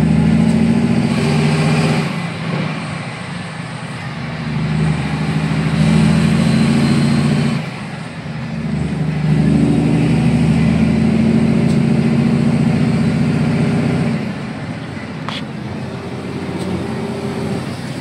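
Kenworth K108 truck's diesel engine with sports mufflers, heard from inside the cab while driving: long loud stretches under power, each dropping off for a moment, about two, eight and fourteen seconds in.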